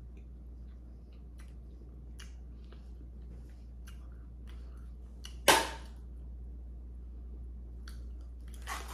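Small scattered clicks of hands picking at seafood-boil shells, with one loud, sharp crack about halfway through as a shell breaks.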